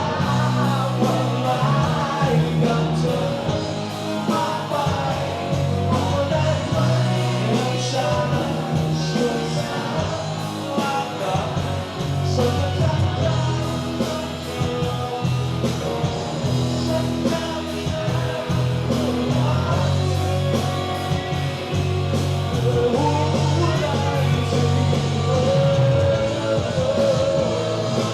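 Live rock band playing, with a lead singer over a steady bass line.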